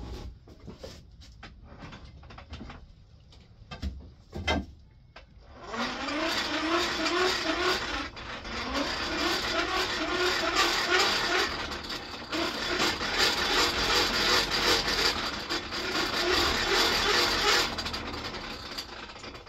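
Electric buffing wheel running for about twelve seconds, starting suddenly about six seconds in, with a scrub plane iron held to it to take off the burr left from sharpening. It dies away near the end. Before it starts there are a few knocks.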